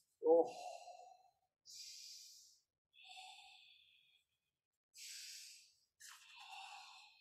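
A man's paced, forceful breathing during an aikido breathing-and-footwork drill: four separate hissing breaths in and out, after a short voiced exhale about a third of a second in.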